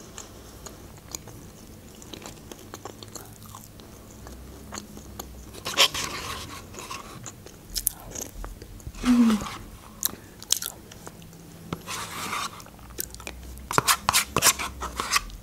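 Close-miked eating sounds: chewing and wet mouth clicks as tomato soup is eaten from a wooden spoon, with several short sips spread through.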